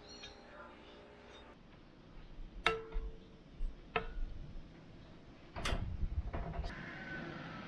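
A few sharp knocks of a plate against a cast-iron skillet as a slab of raw bacon is tipped off it into the pan. One knock early on rings briefly, and a heavier thud comes a little past halfway.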